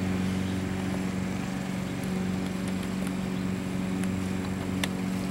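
Steady low hum of a running motor, even in pitch throughout, with one sharp click a little before the end.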